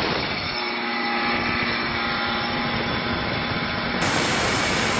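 Power cutting tool running steadily, a rushing noise with a faint steady hum in it; the sound changes character at a cut about four seconds in.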